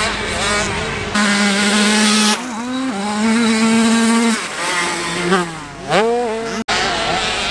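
Small motocross bike engines running hard on a dirt track: held at high revs for a second or so at a time, then dropping and rising again between shifts. The sound cuts out abruptly for an instant about two-thirds of the way through.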